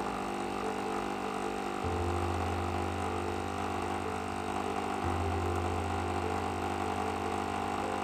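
Coffee machine brewing, its pump running with a steady mechanical hum as coffee streams into a glass of milk; the low hum shifts a little about two seconds in and again about five seconds in.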